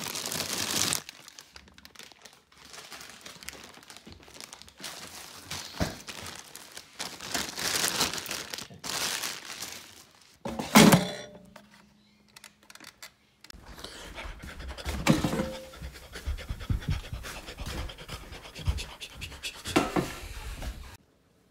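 Plastic freezer bags rustling and crinkling as frozen food is rummaged through, with scattered knocks and one loud thunk about eleven seconds in. Near the end comes a low rumble of handling as an air fryer basket of fries is moved.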